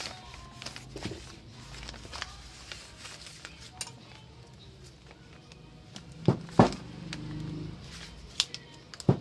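Hands handling a plastic Bluetooth neckband earphone: scattered light taps and clicks of its plastic band and housing, with a few sharp plastic clicks in the second half.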